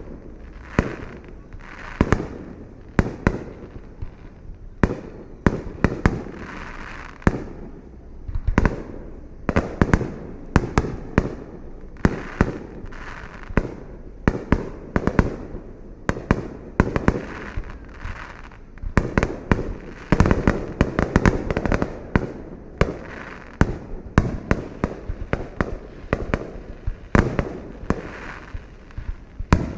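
Fireworks display: a steady run of aerial shell bursts, sharp bangs often several a second, with crackling between them.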